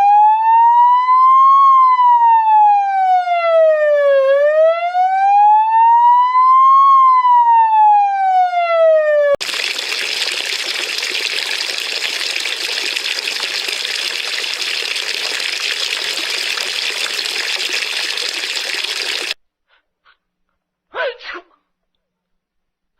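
An electronic siren wailing, rising and falling slowly through two full sweeps before cutting off suddenly about nine seconds in. A steady rushing hiss follows for about ten seconds and stops abruptly, and a brief sound comes near the end.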